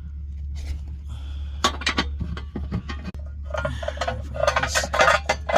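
Metal hand tools clinking and clicking as a socket wrench works a transmission-mount bolt: a few sharp clicks about two seconds in, then a dense run of metallic clinks near the end, over a steady low hum.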